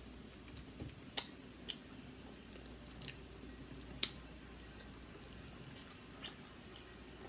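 Close-miked eating sounds: a handful of sharp, wet clicks and smacks from seafood being eaten, spaced irregularly, the loudest a little over a second in and about four seconds in.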